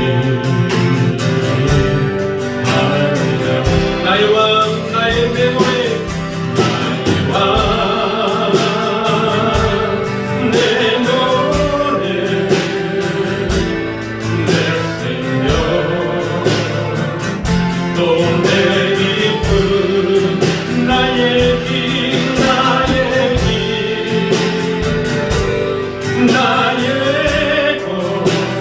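Church praise band playing a worship song: a sung melody with vibrato over guitar and a steady drum beat.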